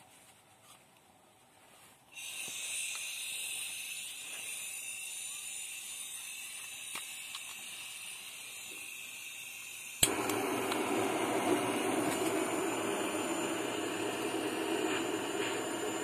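Handheld gas torch on a canister: a steady gas hiss starts about two seconds in. About ten seconds in a sharp click is followed by a louder, fuller rush of burning gas that runs on steadily.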